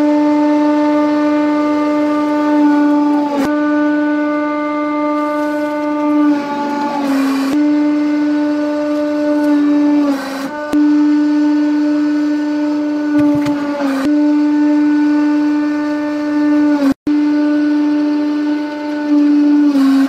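Hydraulic press running with a steady, loud droning whine. The pitch sags briefly each time the ram bears down on a load, and a crackle of crushing comes through around the middle.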